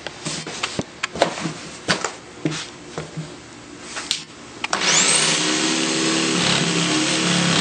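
A series of light knocks and clicks, then about five seconds in a power saw starts with a rising whine and runs steadily, cutting a cultured-stone Onyx shower wall panel.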